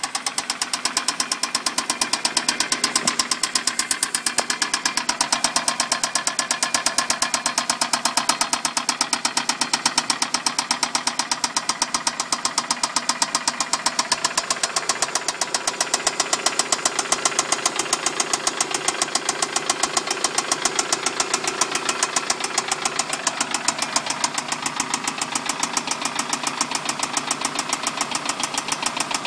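Toyota Solara engine running just after startup with a loud, rapid, evenly spaced knock in time with the engine, steady throughout; the cause is unknown to the owner.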